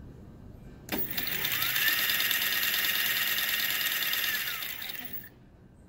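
Three small stepper motors driven by Grbl on an ESP32 board running a high-speed move, each at a different speed: a whine of several tones starts suddenly about a second in and rises in pitch as the motors accelerate. It holds steady, then falls as they slow down and stops about five seconds in.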